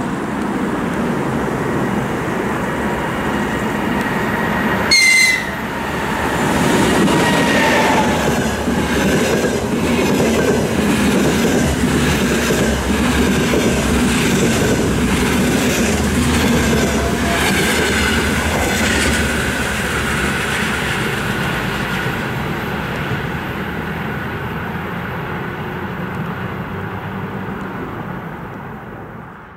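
ЭП20 electric locomotive and its double-deck passenger cars passing at speed, a continuous rumble and clatter of wheels on rail with some high wheel squeal. The locomotive gives one brief high-pitched whistle about five seconds in. Near the end the noise fades as the train moves away.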